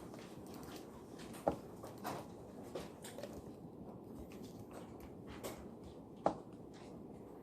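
School library ambience: a steady low room noise with scattered light taps and rustles from desk work, and two sharper knocks, about a second and a half in and again near the end.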